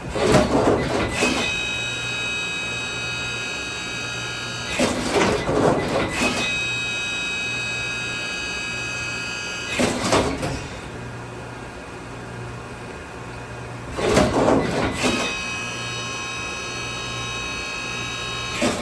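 Brother Speedio R650x1 CNC drilling and tapping center running a cycle: a short clattering mechanical movement about every five seconds, four times, with a steady high whine of several tones between most of them over a low pulsing hum.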